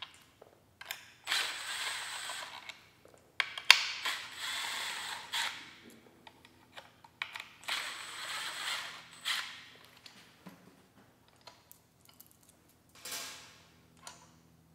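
Cordless drill/driver with a 5 mm hex bit backing out the Allen bolts at the corners of a Hyper9 motor's phase block: four short runs of a second or two each, with small metallic clicks between them.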